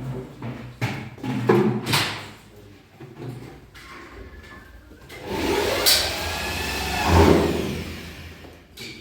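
A few knocks, then a motor whirring that starts about five seconds in, swells and dies away near the end.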